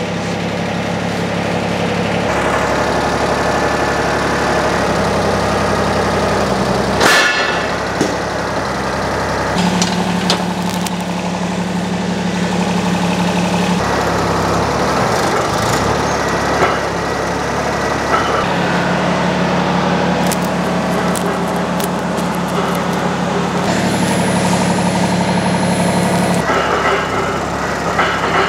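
John Deere 755 compact tractor's three-cylinder diesel engine running while the loader's pallet forks press down on a garden tractor tire to break the bead; its steady hum shifts up and down in steps as the hydraulics work. A sharp crack about seven seconds in.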